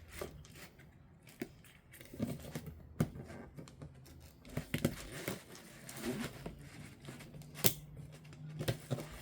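Scattered small clicks, taps and scrapes of hands working inside an opened MacBook, handling and prying at its internal parts, with about half a dozen sharper clicks spread through.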